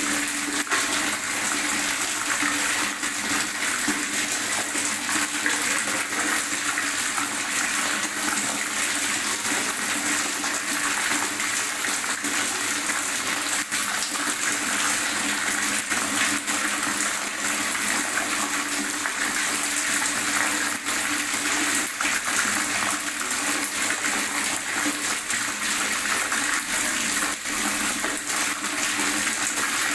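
Water gurgling and rushing steadily, an even, unbroken splashing hiss with no pauses.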